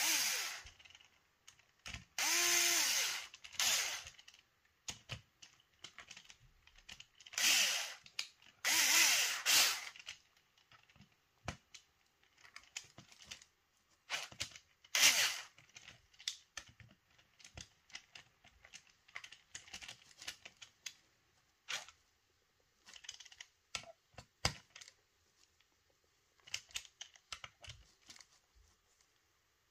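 Electric screwdriver driving screws into a paintball marker's body in several short bursts, its motor whine rising and falling in pitch, within about the first ten seconds. This is followed by scattered light clicks and taps of small parts and tools being handled.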